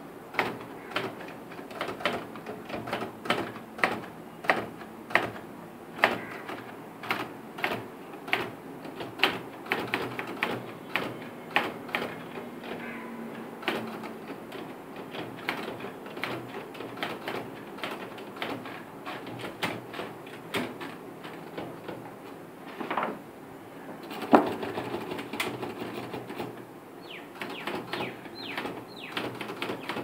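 Manual typewriter keys striking one at a time in an irregular rhythm, about two strokes a second at first and more sparsely later, with one much louder strike in the second half.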